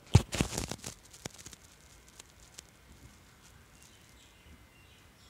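Handling sounds at a sewing machine: a quick cluster of knocks, clicks and fabric rustle in the first second, one sharper click just after, then a few faint ticks over a low background. The machine is not running.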